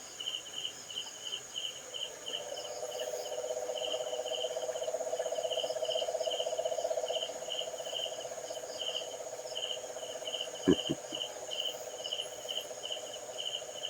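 Night insects: crickets chirping in a steady, regular pulse over a high insect hum. A long, low trill swells in a couple of seconds in and fades out near the end, and there are two brief knocks about three-quarters of the way through.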